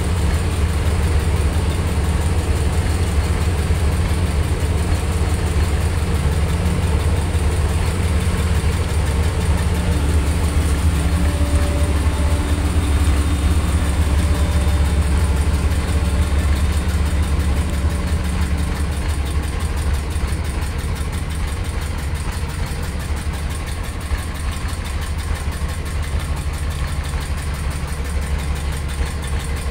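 Boat engine running steadily with a deep low drone, easing slightly about two-thirds of the way through.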